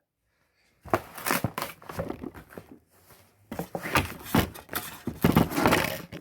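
Packaging rustling and crinkling with irregular knocks and scrapes as a car-audio battery is pulled out of its box, starting about a second in.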